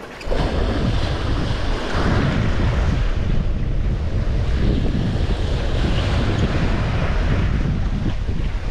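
Wind buffeting the microphone over the wash of sea surf, jumping up in level just after the start and then holding steady.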